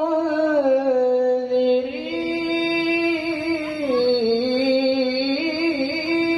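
A man reciting the Qur'an in the melodic tilawah style, amplified by a microphone, holding one long ornamented vowel without a break; its pitch dips down twice and climbs back up.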